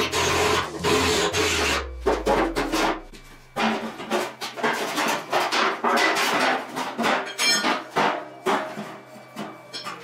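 Cordless drill boring into a washing machine's steel drum for about two seconds, then a series of short metal knocks, scrapes and rubbing as the drum spider is worked loose and lifted off.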